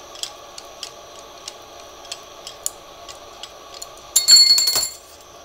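Glassworking bench torch hissing steadily while light ticks come from the crimped glass neck. About four seconds in, a loud crack with a high ringing clink: the stressed neck snaps and the blowpipe end pops off.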